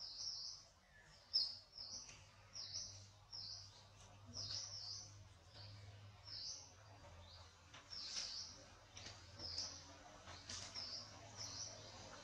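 A bird chirping over and over, short high chirps about twice a second, over a faint steady low hum.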